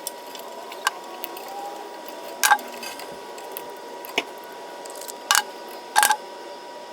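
Five short, sharp clicks and snaps of hand tools working on heavy-gauge electrical cable, spaced a second or so apart, over a faint steady whine.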